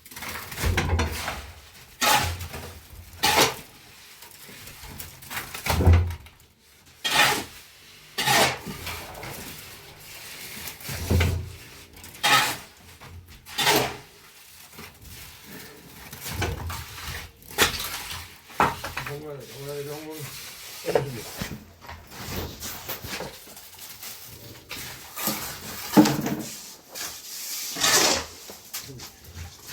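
An irregular series of rough scraping strokes with a few knocks, roughly one every second or two.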